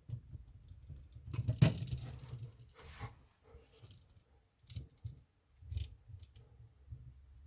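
Scattered clicks and light rattles of a GFCI outlet and its wires being handled, with one sharp click about one and a half seconds in.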